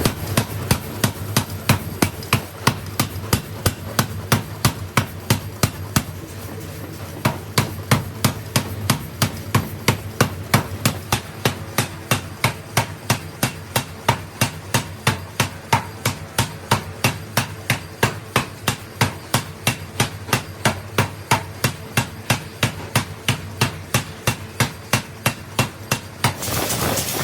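Rapid, evenly spaced striking on metal, about three strikes a second, over a steady machine hum; the strikes stop near the end.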